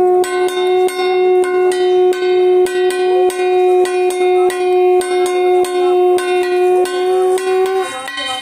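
A conch shell blown in one long steady note that stops near the end, over a hand bell rung rapidly, about three strokes a second, as in a puja ritual.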